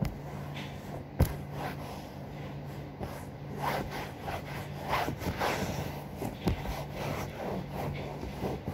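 A cloth rubbing and wiping a sofa cushion in a series of short swishing strokes, busiest in the middle, with one sharp knock about a second in. A steady low hum runs underneath.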